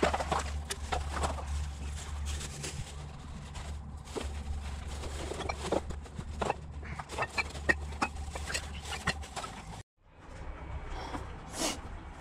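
Irregular rustling, crackling and clicking of footsteps and handling in dry grass and brush over a steady low rumble. The sound drops out for a moment about ten seconds in and comes back as a lighter hiss with scattered crackles.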